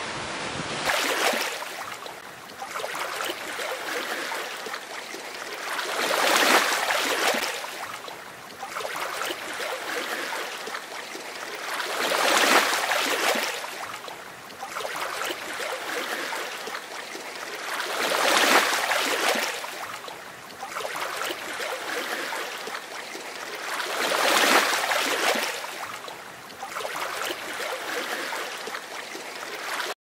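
Ocean surf breaking on a beach: a wave surges in about every six seconds, with a steady wash of water between the breaks.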